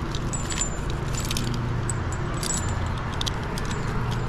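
Metal climbing hardware (carabiners and clips) jingling and clinking in quick, irregular little bursts as the climber moves, over a low steady rumble.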